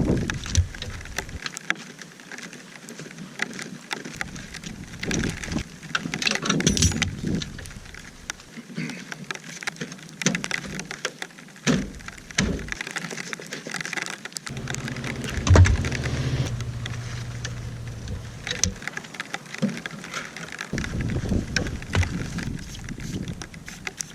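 WD-40 aerosol can spraying in hissing bursts as penetrating oil is worked onto a stuck tire bead, with clunks of tools and the tire being handled.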